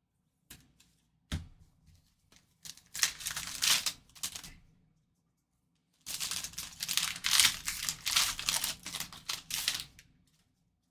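Trading card pack's foil wrapper being torn open and crinkled, in two crackly stretches, after a couple of light clicks near the start.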